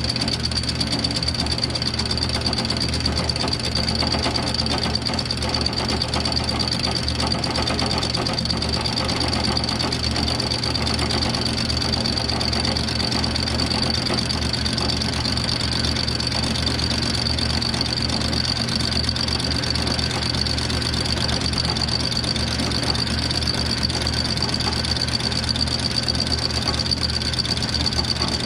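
Milling machine running a fly cutter across the aluminium deck of a Kawasaki X2 650 jet ski cylinder, surfacing (decking) the gasket face. The sound is steady: motor and spindle hum with a steady high whine, unchanged throughout.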